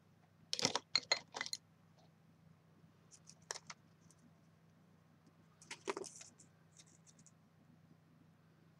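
Light clicks and clatter of small craft tools being handled: a roll of glue dots and a picker tool picked up and worked over a craft mat. They come in three short clusters, about a second in, around three and a half seconds, and around six seconds.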